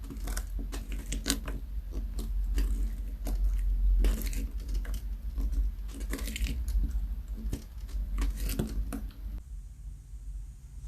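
Homemade glue slime being worked, making irregular sticky clicks and crackles.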